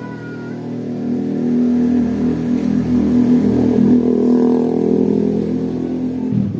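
An engine running, with a steady low hum that grows louder about a second in and eases off slightly near the end.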